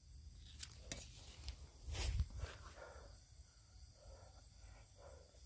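Faint rustling and handling noise, with a few sharp clicks in the first second and a low bump about two seconds in, over a steady high-pitched drone of night insects.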